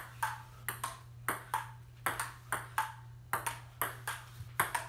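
Table tennis rally: a celluloid ping pong ball clicking back and forth between paddles and the tabletop, at about three to four hits a second, over a steady low hum.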